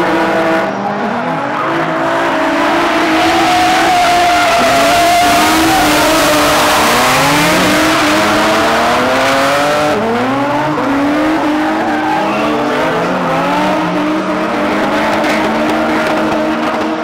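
Several drift cars sliding in tandem, their engines revving up and down on and off the throttle over tyre squeal. The squeal is heaviest through the middle, then eases while the engines keep revving.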